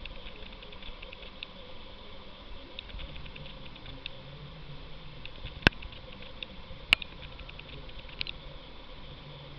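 A large land snail rasping at a piece of green food: faint, rapid crackly clicking throughout, with two louder sharp clicks a little past halfway.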